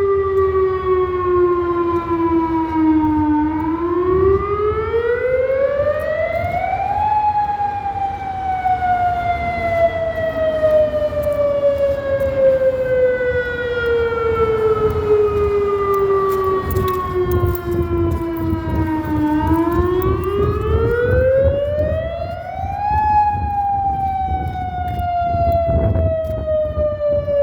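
Modulator civil-defence warning siren sounding its monthly test, a loud wail that rises quickly over a few seconds and then falls slowly for about twelve seconds. The cycle repeats twice.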